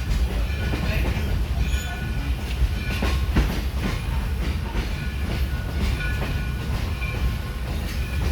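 Steam-hauled excursion train just getting under way: a steady low rumble of the rolling coaches, with short high-pitched squeaks from the running gear and occasional clacks over the rail joints.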